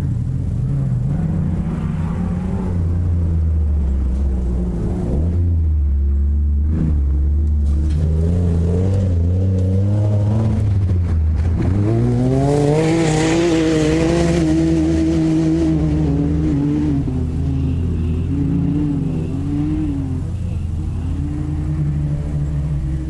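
Off-road race buggy engine running hard, its revs falling and climbing several times. About eleven seconds in the revs drop sharply, then climb steeply as it accelerates, before settling into a steadier run.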